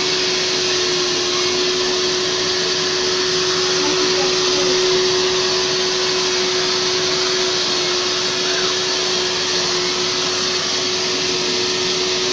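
Kärcher washing (spray-extraction) vacuum running steadily while its upholstery nozzle is drawn over a fabric sofa seat. It makes an even rush of air with a steady low hum underneath.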